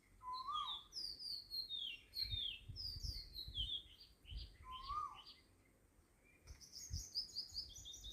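Birds chirping in quick, high, repeated phrases. Twice a phrase opens with a short rising whistle, and a fast high trill comes near the end, with a few dull low thumps in between.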